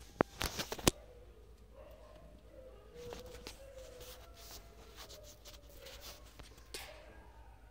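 A few sharp knocks and taps from a phone being handled close to the microphone, bunched in the first second, then soft rustling and small handling noises with a faint wavering tone underneath.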